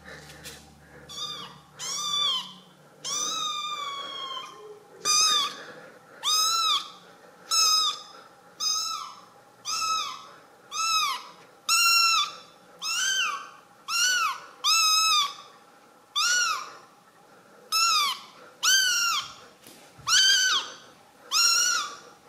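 Young kitten meowing over and over, about one call a second, each call rising then falling in pitch, with one longer, drawn-out call about three seconds in.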